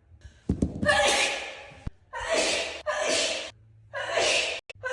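A person's sneezing fit: about four forceful sneezes with sharp breaths, one after another in quick succession, each starting suddenly and trailing off. A short low thump comes just before the first.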